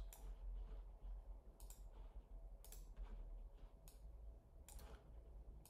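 Clicks from a computer being operated, about half a dozen spaced roughly a second apart, over a faint low hum.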